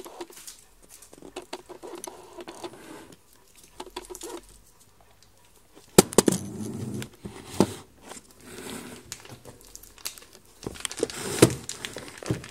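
Handling noise as a camera is passed over and moved about: rustling and scattered clicks, with sharp knocks about six seconds in and again near the end as it is set down on a kitchen counter.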